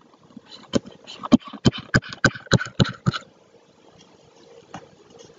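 Stylus tapping and scraping on a tablet screen while drawing a row of short hatch strokes: a quick run of sharp clicks, about five a second, that stops about three seconds in, followed by quiet room tone.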